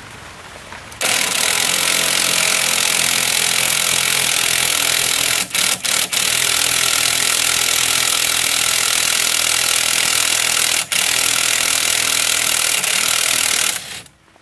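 Impact wrench running on the rusted nut of a sway bar end link while a ratchet holds the bolt from below, spinning the nut off. One long run of about thirteen seconds, with three quick breaks near the middle and one more later, stopping just before the end.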